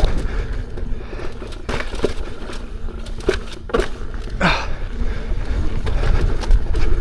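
Lynx electric unicycle rolling fast over a rocky trail: a steady low wind rumble with a string of knocks and rattles as the tyre and suspension hit rocks. A short falling whine comes about four and a half seconds in.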